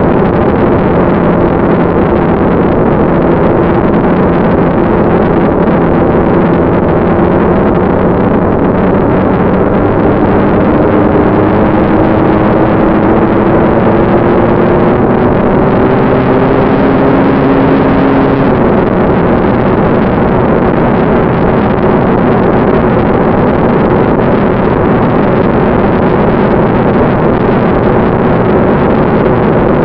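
Electric ducted fan of a radio-controlled BD-5 model jet running in flight, heard through the onboard camera as a loud, steady rush of air with a humming fan tone. The fan's pitch climbs slowly through the middle and drops back suddenly about two-thirds of the way in, as the throttle is eased off.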